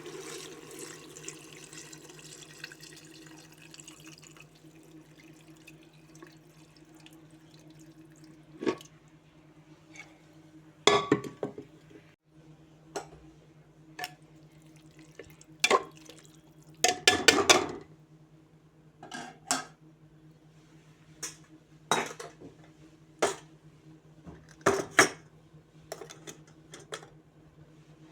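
Pots and kitchen utensils clinking and clattering now and then, a dozen or so short knocks with a longer rattle about two-thirds of the way through, over a steady low hum.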